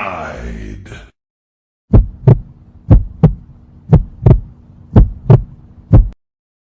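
Heartbeat sound effect: low paired thumps (lub-dub), about one beat a second, five beats in a row. It follows a short falling sound that ends about a second in.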